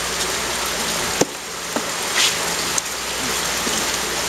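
A steady hiss throughout, with a sharp knock about a second in and a couple of softer clicks as a fish is handled and laid down in a wooden tray.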